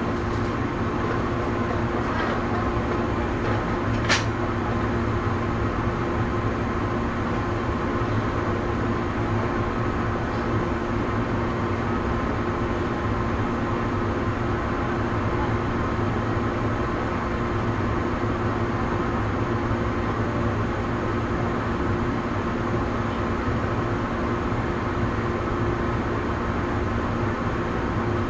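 JR West 117 series electric train standing still with its on-board equipment running, heard inside the car: a steady hum with two held tones over a low rumble and whir. A single sharp click sounds about four seconds in.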